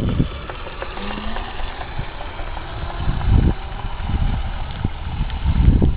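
Wind buffeting the microphone in low gusts, strongest about three seconds in and near the end, over the faint steady whine of a Razor E300 electric scooter's motor as it pulls away.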